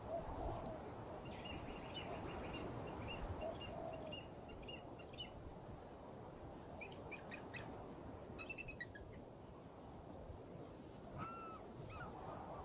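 Small birds chirping: a quick run of repeated high notes for a few seconds, then scattered chirps, and a lower call near the end, over a steady low rumble.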